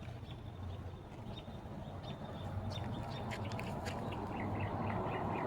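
Small birds chirping: short high chirps, some in quick runs. Street traffic noise swells steadily underneath and grows louder toward the end, like a vehicle approaching.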